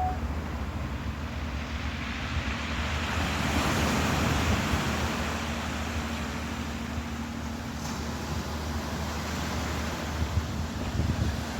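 Ocean waves washing in, one swell of surf building to a peak about four seconds in and easing off, over a steady low engine-like hum.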